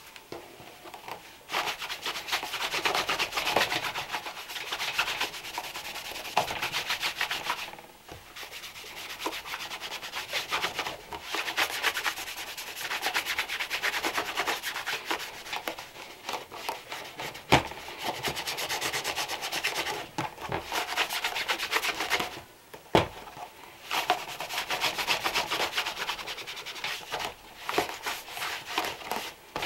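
Stiff shoe brush scrubbing rapidly back and forth over a leather shoe's upper, in quick strokes. It starts about a second and a half in, pauses briefly a couple of times, and has a few sharp knocks in the second half.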